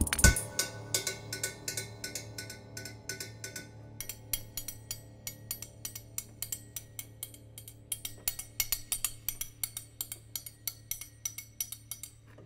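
Experimental playing on an opened upright piano: a run of soft, sharp percussive clicks and taps, several a second and unevenly spaced, over a faint steady low tone.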